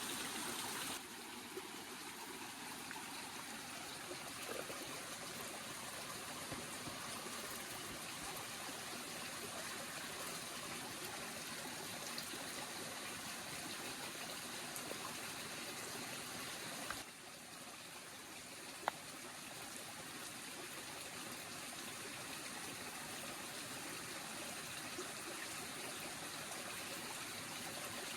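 Steady rush of running water. The level steps down about a second in and again around seventeen seconds, and there is a single sharp click near nineteen seconds.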